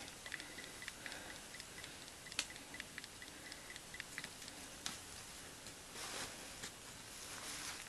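Faint rustling of beaded lace trim being handled on a cutting mat, with a few light isolated clicks.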